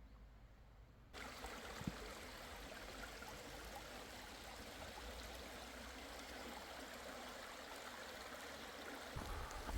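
A mountain valley stream running steadily over rocks, cutting in suddenly about a second in.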